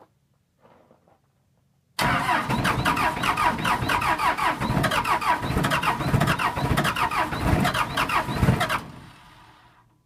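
4BT Cummins four-cylinder turbo diesel in a 1977 Ford pickup cranking on the starter in a −6 °F cold start, with no grid heater, block heater or throttle. The loud, rapidly knocking cranking starts suddenly about two seconds in, runs for about seven seconds, then stops abruptly and fades over about a second.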